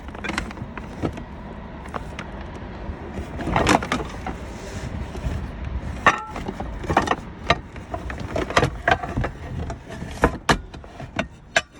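A van driving over a steady low rumble, with frequent sharp knocks, clinks and rattles from loose items bouncing in the back.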